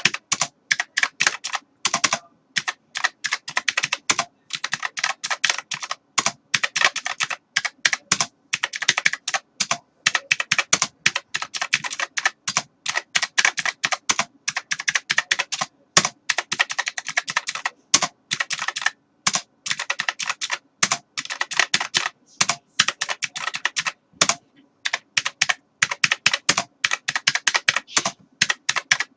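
Typing on a computer keyboard: fast runs of keystroke clicks broken by short pauses.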